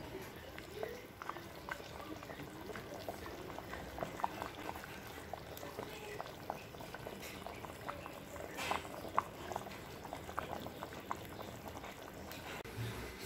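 Thick fish curry (meen kulambu) boiling in a pot, its bubbles bursting in many small, irregular pops and plops, with a few louder pops past the middle.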